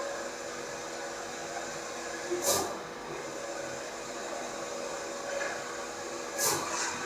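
Allwin C512 large-format solvent printer running, a steady mechanical whir with a faint hum. A brief whoosh comes twice, about four seconds apart.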